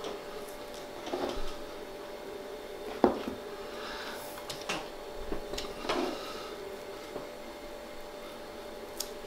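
Metal ring cutter pressed by hand down through a peeled raw potato onto a plastic cutting board: a few soft knocks and scrapes, with a sharper tap about three seconds in, over a faint steady hum.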